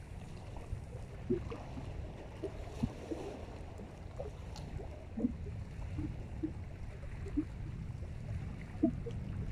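Lake water lapping at the shore in small, irregular plops over a low steady rumble.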